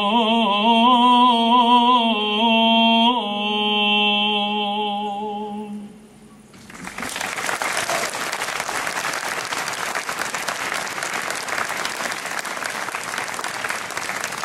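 A male voice singing Gregorian chant in long, slowly moving notes, ending about six seconds in. About a second later an audience breaks into sustained applause.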